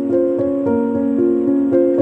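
Background music: a gentle keyboard or piano melody of held notes changing about twice a second.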